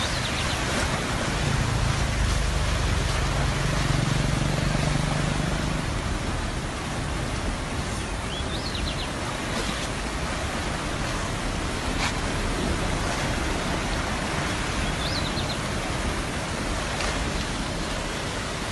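Steady rushing noise of heavy rain and fast-flowing floodwater. A low hum rises under it for a few seconds near the start, and two short high chirps come later.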